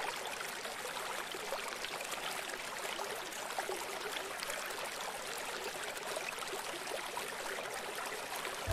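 Steady rush of flowing water: an even hiss with no pitch and no rhythm.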